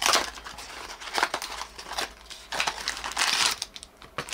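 Plastic packaging wrappers crinkling and rustling in the hands as a blind-box toy package is opened and its red outer wrapper is pulled off an orange inner wrapper. The sound comes in irregular bursts, the loudest right at the start.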